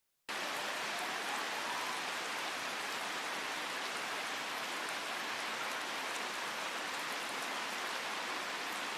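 Heavy rain falling in a steady, even hiss, starting abruptly a moment in.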